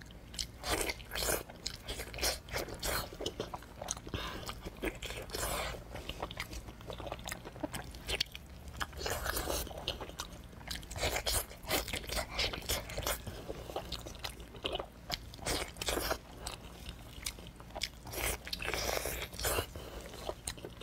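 Close-miked eating sounds: wet biting, chewing and crunching as a sauce-covered piece of braised meat is torn apart and eaten, in a dense run of irregular clicks and crackles.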